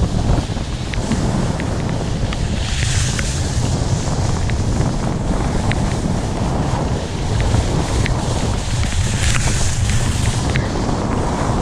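Wind buffeting the microphone of a camera on a downhill skier, a steady low rumble, with the hiss of skis sliding over groomed snow that swells twice.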